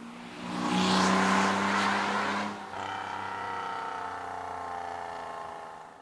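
A car driving past: engine and exhaust loud for about two seconds, then a steady engine note that slowly falls in pitch and fades near the end.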